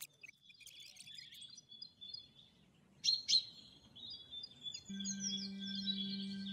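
Small birds chirping and twittering in short high calls, with two sharp clicks just after three seconds in. A steady held chord of music comes in about five seconds in.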